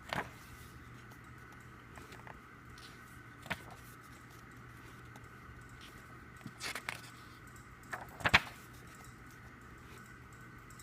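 CD album packaging and cards being handled: a few scattered clicks and taps, the loudest pair about eight seconds in, over a faint steady hum.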